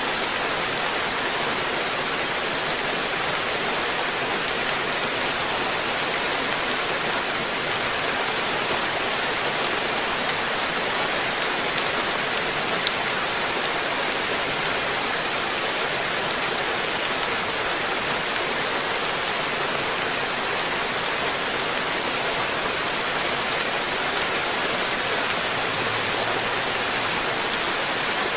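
Steady rain falling on a garden pond, an even hiss with a few single drop ticks now and then.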